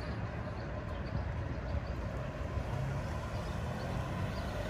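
Steady low rumble of a minivan's engine and tyres as it drives over the railroad crossing.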